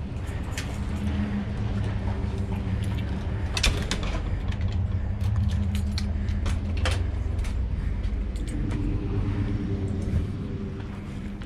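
A motor running steadily, with scattered clicks and light knocks over it.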